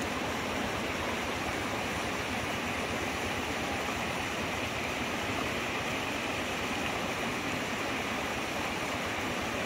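Steady rush of running water from muddy floodwater flowing through the paddy plots.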